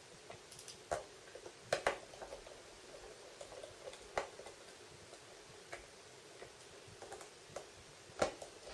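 Small Phillips screwdriver and tiny screws clicking and tapping on a phone's plastic housing as its screws are taken out: faint, scattered sharp clicks, with the loudest ones about two seconds in and near the end.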